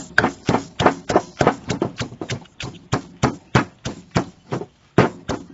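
Wooden pestle pounding a spice paste of dried chilies, shallots, garlic, galangal and lemongrass in a clay mortar: steady, even thuds, about three a second.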